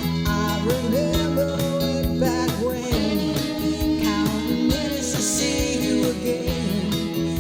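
Background music: a song with guitar over a steady drum beat.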